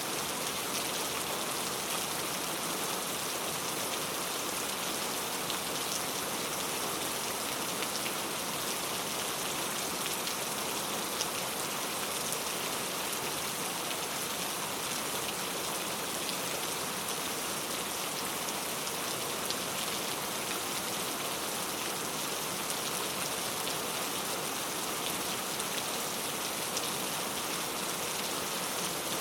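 Very heavy rain falling steadily, a dense continuous hiss of drops striking a surface.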